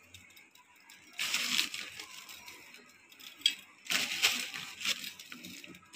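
Crisp rustling and crinkling as handfuls of dry, crunchy sev are picked up and heaped onto puris on a steel plate, in two short bursts about a second and four seconds in, with faint small clicks between.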